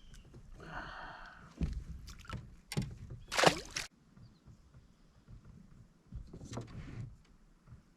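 Knocks and scraping against a fishing kayak's hull as gear and the angler move about in the boat: several sharp knocks in quick succession, the loudest about three and a half seconds in, and another bump near the end.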